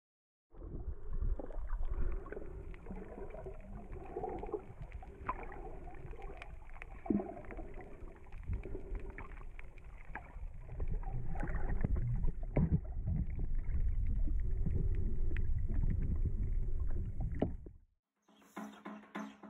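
Underwater sound picked up by a submerged camera: a dense, muffled wash of water noise with scattered clicks and knocks. It starts about half a second in and cuts off suddenly near the end, when percussive music takes over.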